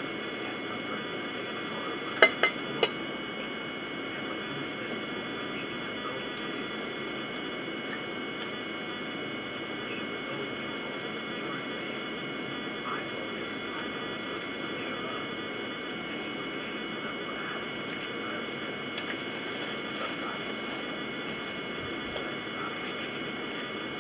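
Steady room hum, with three sharp clicks of a metal fork against a china plate about two seconds in and a few faint ticks of cutlery later.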